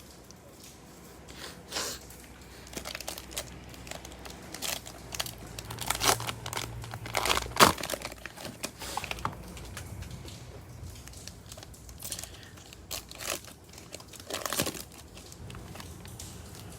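Cellophane wrapper of a trading-card pack being torn open and crinkled by hand, in irregular sharp crackles.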